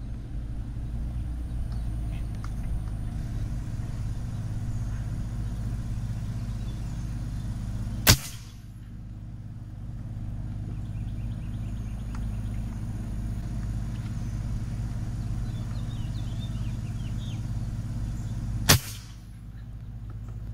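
Two single sharp shots from an AEA Challenger .357 PCP bullpup air rifle, fitted with an aftermarket regulator, fired about ten seconds apart: one about eight seconds in and one near the end. A steady low hum runs underneath, with faint bird chirps.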